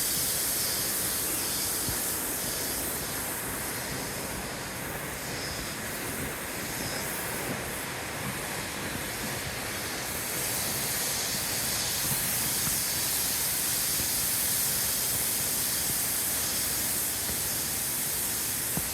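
Loud cicada chorus: a steady, high buzzing hiss that eases a little partway through and swells again.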